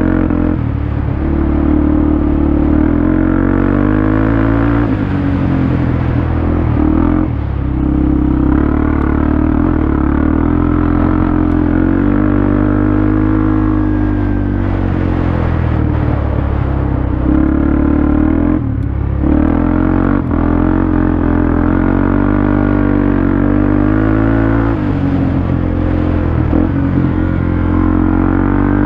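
Off-road vehicle's engine running under load, its revs rising and falling with the throttle, with two short dips about seven and nineteen seconds in.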